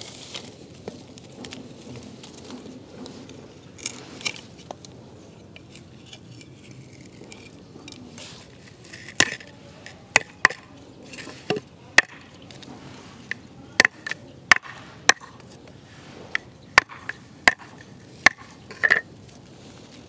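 Machete chopping and trimming thin bamboo sticks: quiet handling at first, then a run of sharp, irregular knocks about halfway in.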